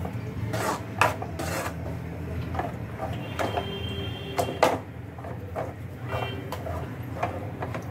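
A utensil mashing thick vegetable bhaji in a pan: irregular knocks and scrapes against the pan, about a dozen over several seconds, over a steady low hum.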